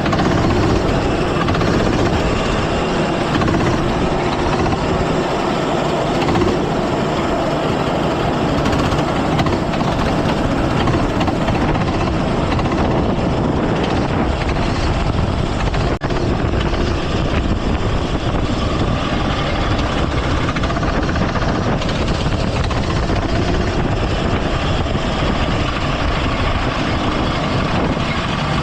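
Go-kart engine running under throttle through a race, heard onboard the kart, steady with only small changes in pitch and a brief dip about halfway through.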